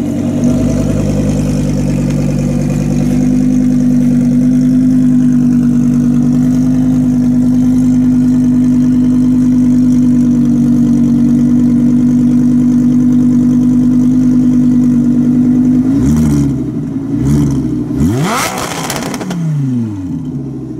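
Audi R8's V10 engine held at steady revs, then dropping back and revved in a few quick blips near the end.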